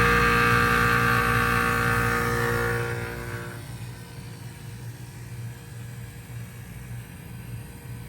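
1995 Bard 3.5-ton wall-hung heat pump running through its defrost cycle: a loud, many-toned mechanical hum drops away about three and a half seconds in, leaving a quieter steady low hum.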